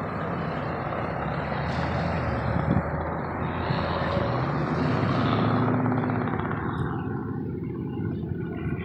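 Steady engine noise that grows louder through the middle and thins out near the end.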